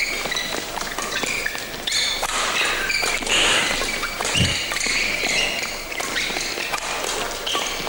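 A badminton doubles rally: sharp racket strikes on the shuttlecock and short high squeaks of court shoes, over a steady hall crowd murmur. A heavier thud comes about four and a half seconds in.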